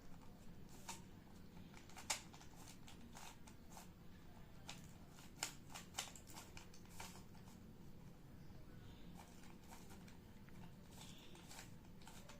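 Rubik's Cube layers being turned by hand: irregular plastic clicks and clacks, faint, with a few sharper ones about 2 s in and around 6 s.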